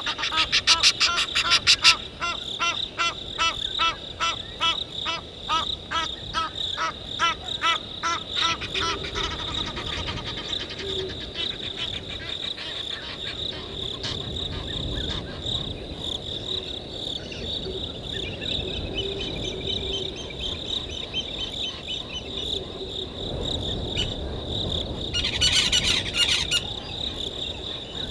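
A steady, high-pitched chorus of crickets and other insects in the evening bush. In the first nine seconds a fast, evenly repeated chirping call runs over it, and a short burst of dense high sound comes near the end.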